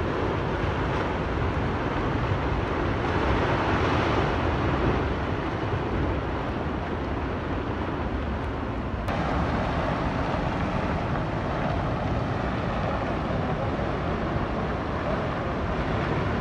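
Steady rushing roar of a flooded mountain river, with deep rumble under the rush. A faint click comes about nine seconds in.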